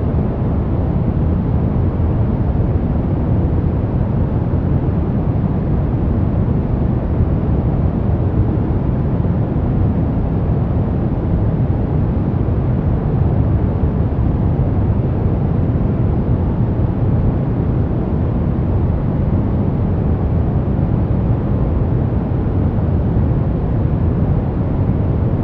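Steady, unchanging noise played for relaxation, deep and rumbling, with most of its weight in the low end and little hiss at the top.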